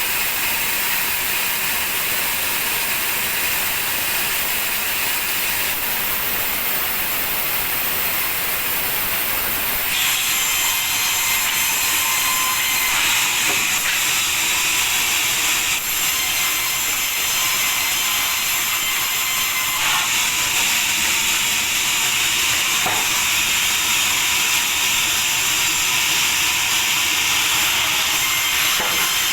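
Sawmill machinery running steadily, a dense high-pitched noise that grows louder and brighter about ten seconds in.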